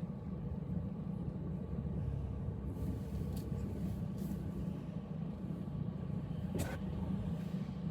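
Steady low rumble of a car's engine and tyres on the road, heard from inside the cabin while driving, with a few faint brief ticks.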